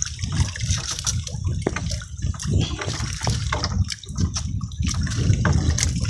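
Wet fishing net being hauled in by hand over a boat's side, water dripping and splashing off the mesh in many quick, irregular drops over a low steady rumble.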